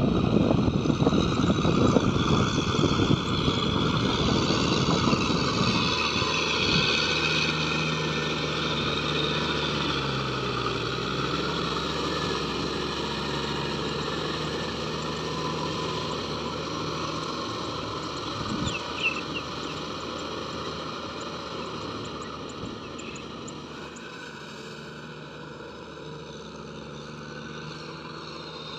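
Kubota M6040SU tractor's four-cylinder diesel engine running steadily under load, with the rotavator churning through mud and water, roughest in the first few seconds. The engine pitch dips briefly about ten seconds in, and the sound fades gradually as the tractor moves away.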